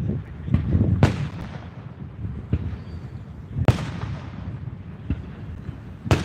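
Aerial fireworks shells bursting: three loud booms about two and a half seconds apart, with lighter bangs and a continuous low rumble between them.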